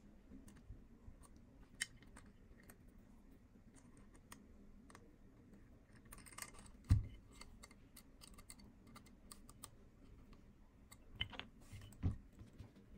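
Small clicks, scrapes and taps of hands working a plastic auto-clicker base and tightening the brass collar on its metal rod. A dull thump about seven seconds in is the loudest sound, with a few more knocks near the end.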